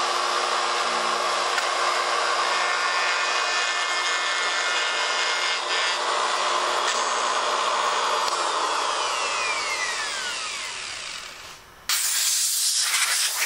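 Porter-Cable router cutting a groove in an MDF top with a steady whine, then switched off and winding down, its whine falling in pitch as it slows. Near the end, a sudden loud hiss of a compressed-air blow gun clearing dust from the groove.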